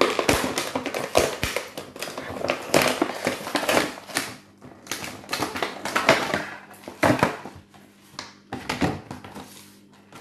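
Clear plastic blister of a vintage carded action figure crackling and crinkling as it is pried and torn away from its cardboard backing card, in irregular spells with short pauses.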